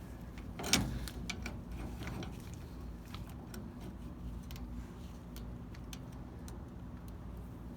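A ratchet wrench clicks irregularly as it turns the screw of a ball joint press, driving a new bushing into a leaf spring eye. There is one sharper click about a second in, then sparser ticks.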